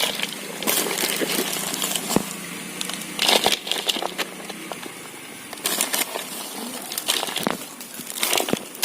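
A 5-litre plastic bottle fish trap being handled as bait is put into it: irregular crackles, crinkles and light knocks of plastic.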